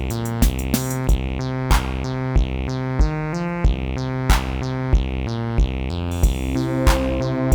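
Amiteque AR-110 analog drum synth playing a looping electronic pattern: a kick drum about every two-thirds of a second, with a noisy snare-like hit on every fourth beat. Pitched synthesizer notes change along with the beat.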